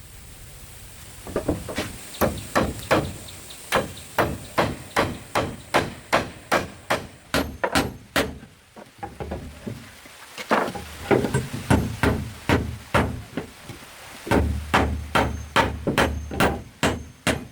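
Repeated blows of a hand tool striking material, about two to three a second, in three runs with short pauses between them.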